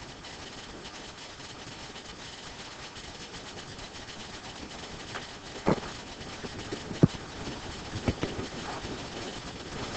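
Steady low hiss of classroom room noise with a few short knocks, the loudest about six and seven seconds in.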